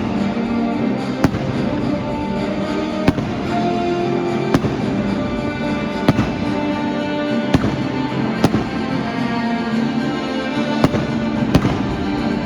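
Fireworks going off, about eight sharp bangs a second or so apart, over steady music.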